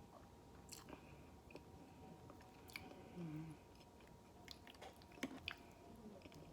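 Faint close-up chewing of a thick cheddar biscuit, with soft scattered mouth clicks and a brief closed-mouth hum about three seconds in.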